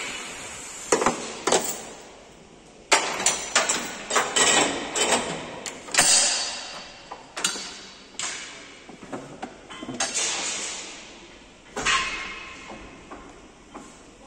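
Heavy steel chains and steel clamps of a truck-cab straightening bench clanking and rattling against the bench tower, a string of irregular metal knocks, each with a short ring.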